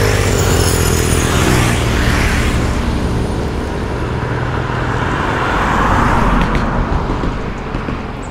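Motorcycle engine running with road and wind noise while riding along; the engine note drops during the first second as the bike eases off. The rushing noise swells again about six seconds in.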